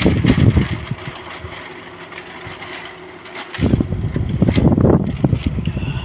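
Homemade table fan built from an exhaust-fan motor, running properly after a broken wire was rejoined, its airflow buffeting the microphone. The buffeting drops away for a couple of seconds after about the first second, leaving the fan's steady hum, and returns about three and a half seconds in.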